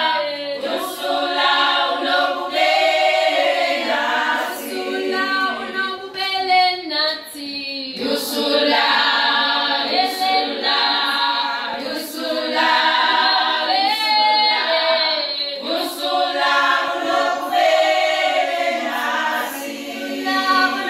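A group of women singing together a cappella, with no instruments, in phrases of about four seconds each.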